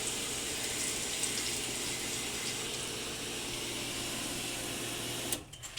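Pool pump running on high, with a steady rush of circulating water and a faint hum; it cuts off suddenly near the end.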